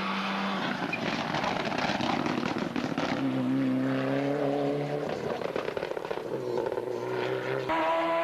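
Race car engine running hard on a hillclimb, its note stepping up and down through gear changes, with a rough, crackling stretch in the first few seconds.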